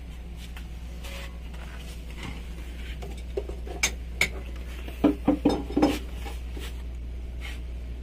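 Metal tools and parts clinking and knocking against each other, with a quick cluster of sharp clanks about halfway through, over a steady low hum.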